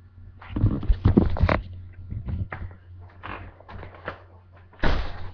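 Knocks, clicks and rattling of a door being opened and handled, loudest about half a second to a second and a half in, with a short rustling rush near the end.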